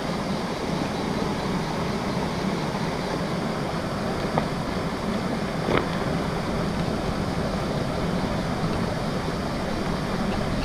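Steady rush of a stream: water pouring over a small rocky cascade into a pool, with a couple of faint clicks about four and six seconds in.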